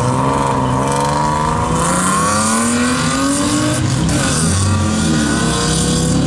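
Car engine and exhaust accelerating hard from a pull-away, the pitch climbing steadily, then falling suddenly in an upshift about four seconds in before climbing again.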